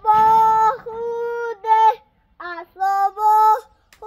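A child singing a short tune in held, steady notes, two phrases with a brief pause between them.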